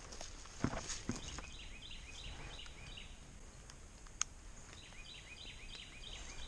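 Faint outdoor ambience with a bird singing: two runs of quick, repeated high chirps, a few per second. There are a couple of soft knocks in the first second and a single sharp click about four seconds in.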